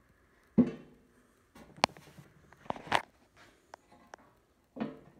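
A center console lid is closed down onto its rare earth magnets and worked against their pull. There is a thump about half a second in, then several sharp clicks and knocks as the parts meet and the magnets snap together.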